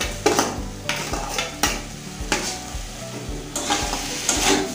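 Onion-spice masala sizzling in a kadai as dry rice and fried potatoes are tipped in and stirred with a metal spatula, which scrapes the pan repeatedly at uneven intervals.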